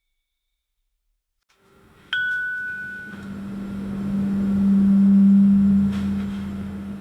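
A single elevator arrival ding about two seconds in, a clear bell-like tone that rings out over about a second. It is followed by a low steady hum that swells for a few seconds and then fades, louder than the ding.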